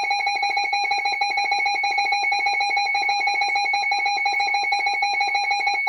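Emergency Alert System attention signal: a steady two-tone electronic alarm that starts suddenly and holds without a break, announcing a newly issued special marine warning.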